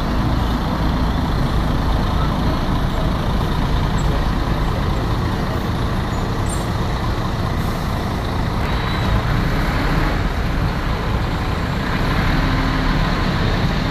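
Diesel engine of a Mercedes-Benz O500R 1836 coach running as the bus pulls slowly away, a steady low rumble, with a short hiss of air about nine seconds in.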